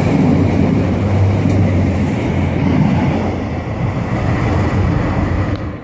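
NI Railways Class 3000 diesel multiple unit passing close by: a loud, steady rumble of engine and wheels on the rail with wind buffeting the microphone, easing off and dropping away near the end.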